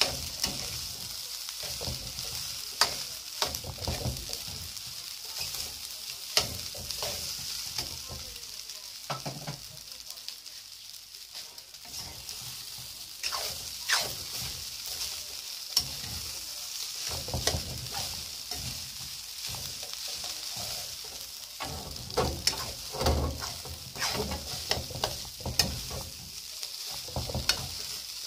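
Fried rice with egg and ham sizzling in a metal wok as a metal spatula scrapes and knocks against the pan while turning it. A steady sizzle runs under frequent sharp scrapes, which come quicker near the end.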